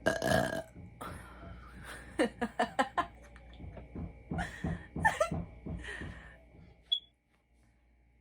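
A woman burping up soda gas again and again. A long loud burp opens it, then come a quick run of short burps and several more separate ones, and the burping stops about a second before the end.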